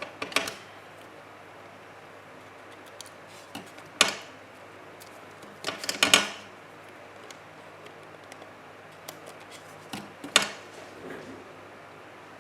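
Paper craft pieces being handled and pressed down on a tabletop: a few brief taps and rustles, about four seconds apart, with quiet between.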